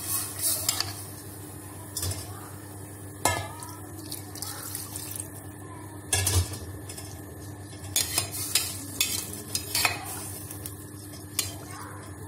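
Steel spoon stirring rice, peas and water in an aluminium pressure cooker, clinking and scraping against the pot at irregular moments.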